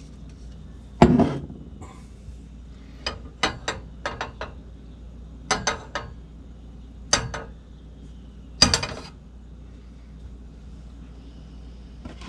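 Frying pan knocking and clinking against a gas stove's cast-iron grate as it is handled: a loud clunk about a second in, then scattered groups of sharp clicks and knocks, and another loud clunk later on.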